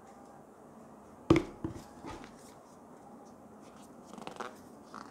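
Hands handling a small cardboard product box on a table. A sharp knock comes a little over a second in, followed by lighter taps and clicks as the box is gripped and turned.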